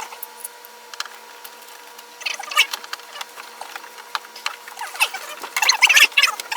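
Stiff pop-up camper canvas and vinyl rustling and crinkling as it is handled and pressed into place by hand, with scattered clicks and scrapes that come in two denser clusters.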